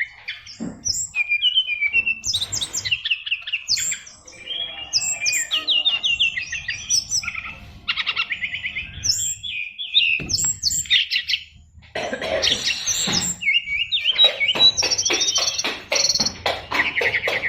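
SRDC (sikatan rimba dada coklat) songbird singing a fast, varied song packed with mimicked calls, with quick chirps and whistles and rapid rattling trills in the second half.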